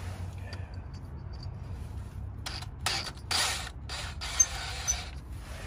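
Metal hardware and hand tools rattling and scraping in several short bursts from about halfway in, with two sharp clicks near the end, over a low steady hum: self-tapping screws being readied to pull an old oil seal.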